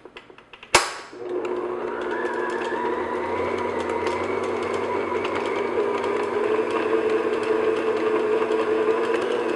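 Stand mixer switched on with a click a little under a second in, then its motor running steadily on low speed while the paddle attachment beats lumps of almond paste in a glass bowl.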